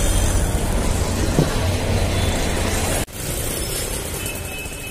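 A bus engine running close by amid street traffic noise, with a steady low rumble. The sound cuts out for an instant about three seconds in, then carries on quieter and begins to fade.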